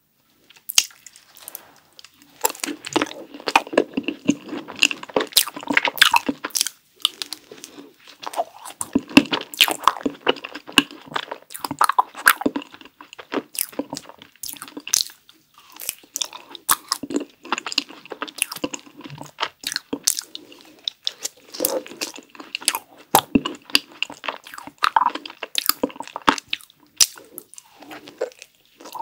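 A cookie ice cream bar being bitten and chewed: sharp crunches of the chocolate cookies and frozen ice cream, with chewing between them. The crunching starts about a second in and comes in runs, with brief pauses between bites.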